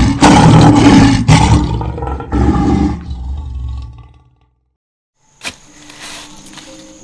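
A loud animal roar in several growling surges, dying away about four seconds in. After a brief silence, a much quieter sound with faint steady tones and a few sharp clicks begins near the end.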